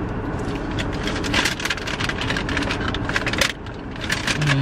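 Car cabin: a steady low rumble from the car driving, with scattered sharp clicks and crackles over it, and a short falling hum near the end.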